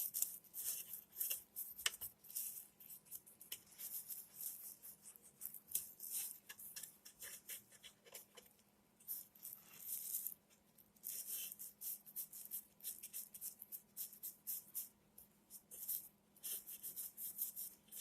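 Quick scratchy strokes of a small cleaning tool scrubbing dust and dirt from the metal parts inside an old Singer sewing machine. The strokes come in bursts, with short pauses between them.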